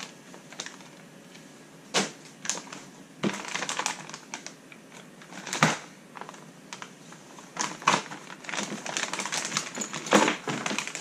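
Clear plastic kit parts bags being handled and set down on a desk: irregular crinkling and rustling with sharp clicks and taps of the small parts inside, the loudest a few seconds apart.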